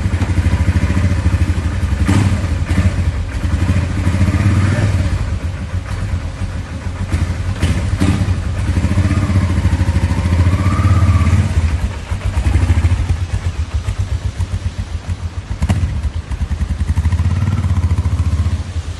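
Honda XRV650 Africa Twin's V-twin engine, freshly top-end rebuilt with 696cc high-compression JE pistons, running with the revs rising and falling.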